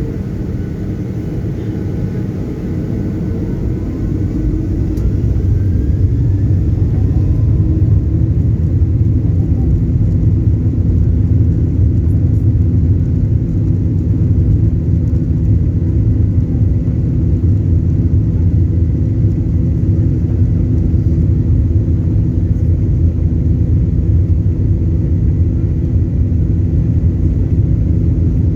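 Boeing 737-800's CFM56 turbofan engines spooling up for takeoff. A low rumble and a rising whine build over the first several seconds, then hold at a steady, loud roar at takeoff thrust.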